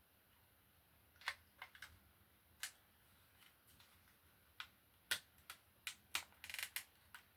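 Scattered light clicks and taps of a flash accessory being handled and slid onto a camera flash unit, with a quick run of clicks near the end.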